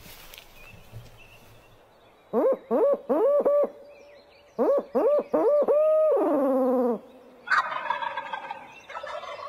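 Barred owl locator call hooted through cupped hands: two phrases of hoots, the second ending in a long falling note. About half a second later a wild turkey gobbler gobbles in reply, a shock gobble set off by the owl call.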